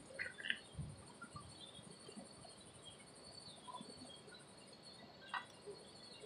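Faint steady high-pitched insect drone from the trees, pulsing finely, with a few faint scattered voices from the crowd.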